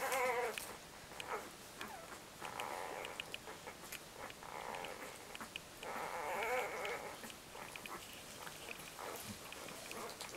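Newborn Labrador retriever puppies squeaking and whining while they nurse: several short, wavering calls, with small suckling clicks scattered between them.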